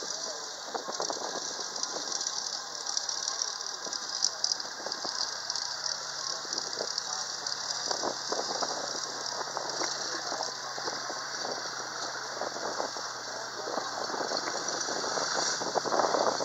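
Tracked armoured vehicles driving across a field: a steady engine hum and the clatter of their tracks, over a constant high hiss, getting louder near the end as a larger vehicle comes close.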